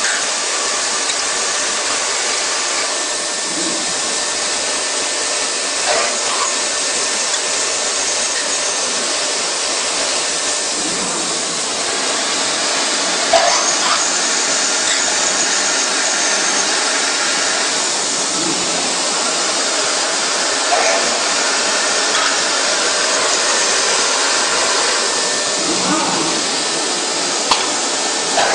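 CNC machining center running a drilling cycle: a steady hiss with faint steady tones running through it, and a few brief sharp clinks.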